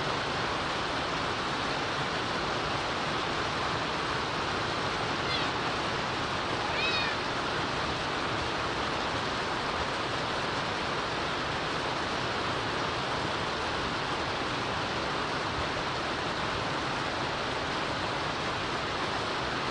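Steady monsoon rain hissing on the enclosure's windows and roof. Two brief, faint high calls come about five and seven seconds in.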